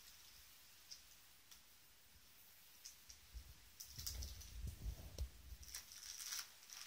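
Plastic bubble wrap crinkling and clicking faintly as a cat steps and noses about in it: a few scattered light clicks at first, then from about four seconds in a busier run of crinkling with soft low thumps.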